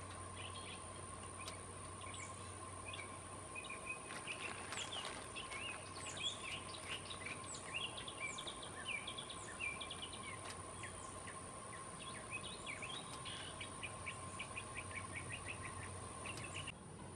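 Several small songbirds chirping and calling, many short quick notes overlapping, busiest through the middle, over a faint steady tone.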